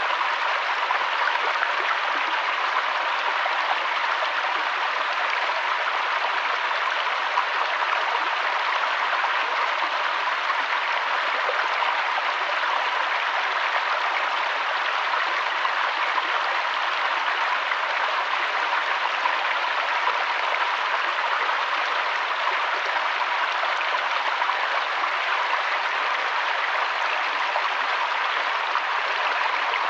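Flowing river water, a steady, even rushing with no breaks or changes.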